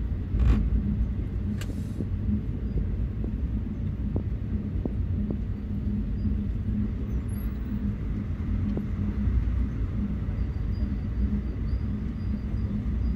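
Indian Railways passenger coach running at speed: a steady low rumble of wheels on the rails, with two sharp clicks about half a second and a second and a half in, and a few faint ticks later.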